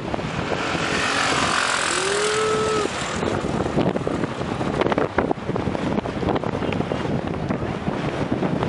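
Wind buffeting the microphone hard, over the distant engine noise of a jet airliner taking off and climbing away. A brief whistle-like tone comes about two seconds in.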